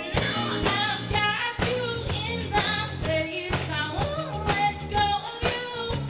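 Pop song performed by a band with singing, the drum kit coming in suddenly at the start with a steady beat of about two hits a second under the vocal melody.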